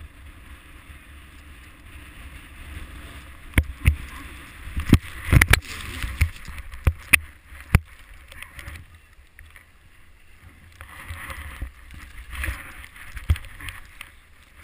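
Powder snow hissing and swooshing under a rider's edges during a run, in swells, with a low wind rumble on the camera. A series of sharp knocks, the loudest sounds, come in a cluster between about four and eight seconds in.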